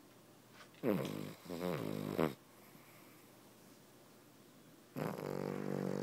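Cavalier King Charles Spaniel snoring in its sleep: one snore about a second in, and another starting near the end.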